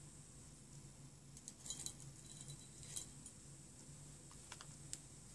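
Faint, scattered clicks and light taps of nail-stamping tools being handled and set down on a silicone mat, over a low steady hum.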